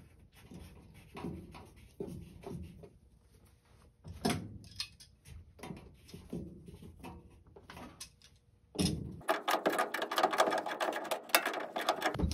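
White PVC fitting being screwed by hand into an AC unit's condensate drain port, making faint scrapes and small clicks. About nine seconds in, a dense run of rapid clicking and creaking starts and lasts about three seconds as the fitting is tightened further.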